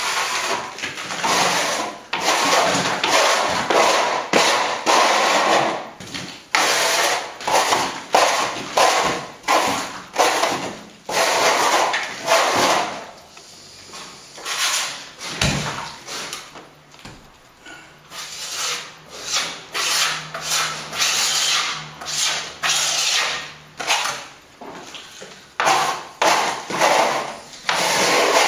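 Broad metal scraper blade scraped over a plastered wall in quick repeated strokes, taking surplus dried sand-and-plaster fill off the surface. The strokes ease off for a few seconds midway, then pick up again.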